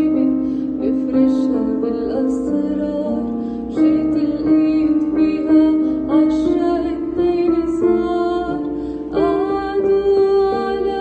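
A woman singing an Arabic song with instrumental accompaniment: a slow melody of held notes with vibrato in the voice.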